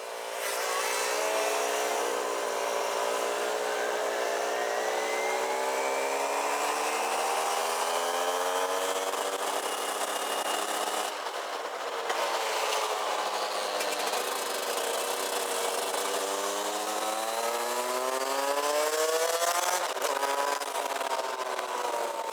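Rotax Max DD2 125 cc two-stroke kart engine under hard acceleration, its pitch climbing for about ten seconds, dropping sharply about eleven seconds in, then climbing again and falling off near the end. A steady hiss of wind on the onboard microphone runs under it.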